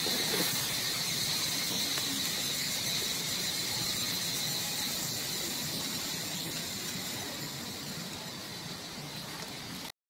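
Steady outdoor insect chorus, a constant high-pitched buzzing over a background hiss; the buzzing grows fainter after a few seconds and the sound cuts off suddenly near the end.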